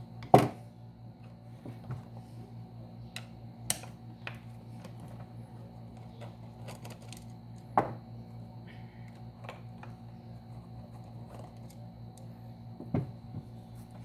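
Scattered clicks and knocks of a screwdriver, small screws and plastic parts being handled while screws are taken out of a desk fan's oscillation gearbox and set down. The loudest knock comes about half a second in, with others near four, eight and thirteen seconds, over a steady low hum.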